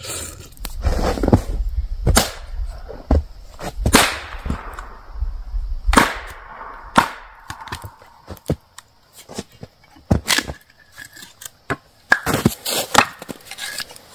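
Firewood being chopped and split: a series of sharp, irregular wooden cracks and strikes, about a dozen, some with a brief ringing crackle after them.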